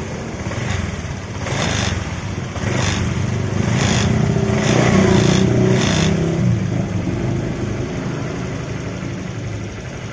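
Honda Vario 125 scooter's single-cylinder liquid-cooled engine running hot and blipped about five times between roughly one and a half and six seconds in, then settling back to a steadier idle. The coolant is boiling and spurting out of the open radiator filler at this heat, which the mechanic puts down to a thermostat that does not open.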